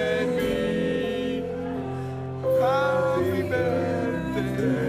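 Live studio band playing, with voices singing over it.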